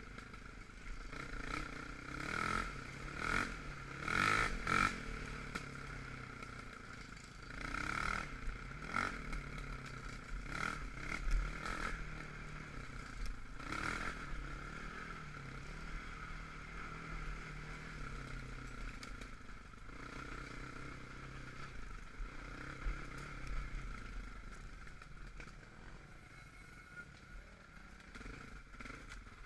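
Off-road vehicle engine running at varying speed, revved up in several bursts during the first half, then running more steadily and quieter toward the end.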